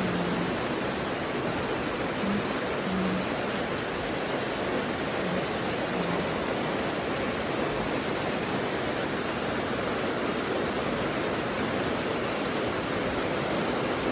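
Heavy typhoon rain pouring down steadily, a strong, even hiss.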